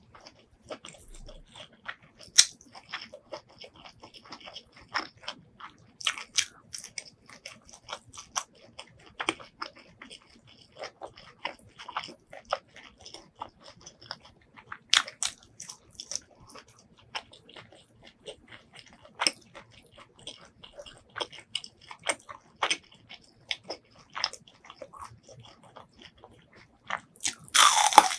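Close-miked eating: a person chewing spicy pork liver salad, with irregular mouth clicks and smacks. A louder crunching bite comes just before the end.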